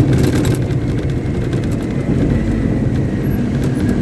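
Caterpillar 777D haul truck's V8 diesel engine running at a steady speed with a deep, even drone. A few brief clicks come in the first half second.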